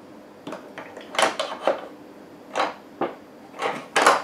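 Moulinex Companion food processor attachments knocking and clicking against their plastic storage tray as they are lifted out and handled: an irregular series of about eight sharp plastic knocks, the loudest just before the end.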